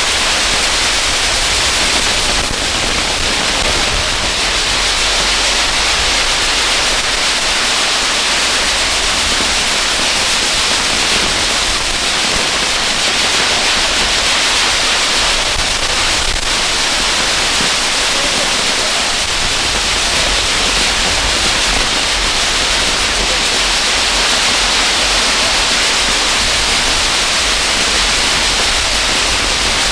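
Ground fireworks burning with a steady, loud hiss and a low rumble beneath, unbroken throughout.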